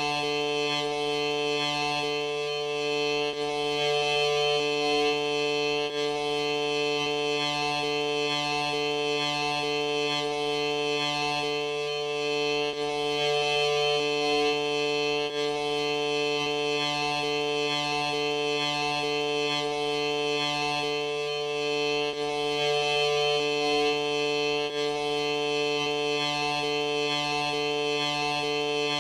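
A steady, droning musical tone of several held pitches, like a sustained drone, with a small pattern of breaks that repeats about every nine to ten seconds.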